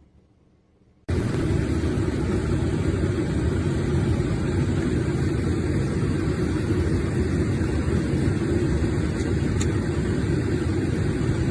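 A steady machine running noise, low and even, that cuts in suddenly about a second in after near silence.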